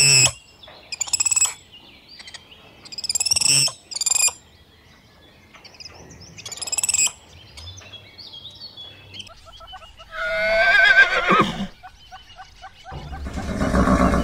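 A few short, high-pitched chirping calls, then a horse whinnying twice: a long quavering whinny about ten seconds in and another near the end.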